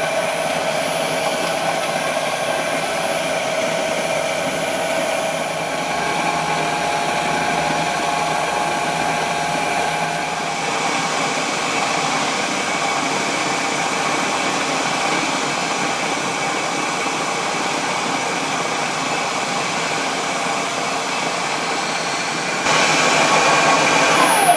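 Machine-driven bandsaw wheel spinning steadily while a cutting tool shaves its polyurethane tire to put a crown on it; the polyurethane cuts with difficulty. A steady running sound with a few held tones, getting a little louder near the end.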